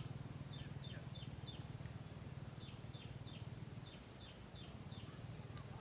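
Outdoor nature ambience: a small bird calls in short, high, falling chirps, in quick runs of three or four, over a steady high insect drone.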